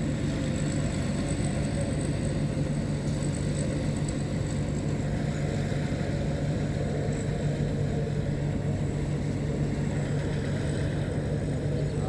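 Rice combine harvester's engine running steadily, a constant low drone that holds the same pitch throughout.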